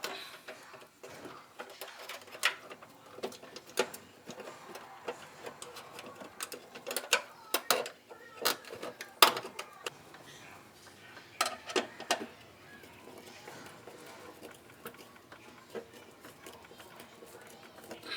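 Irregular sharp clicks and knocks of hand tools and metal parts being handled, with quieter rustling between them, as the water heater's ground wire is connected.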